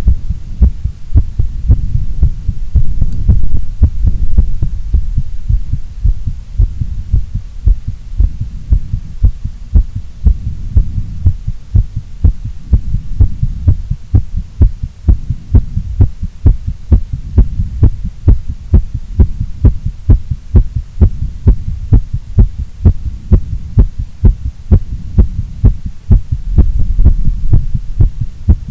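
A woman's heartbeat: regular low beats, one after another, over a steady low rumble.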